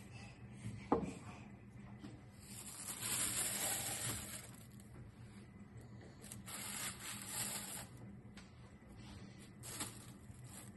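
Thin plastic bag rustling and crinkling as chunks of raw pork belly are dropped into it inside a glass bowl, in two spells, with a single sharp knock about a second in.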